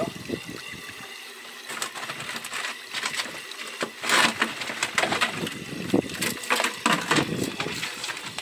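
Irregular knocks and clatter of a plastic bucket and its lid being handled as live tilapia are put into it, with a louder scraping rush about four seconds in.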